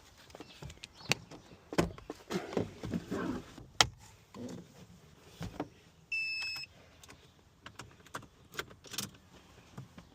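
Scattered clicks, knocks and clatter of keys and tools being handled, with one short electronic beep about six seconds in.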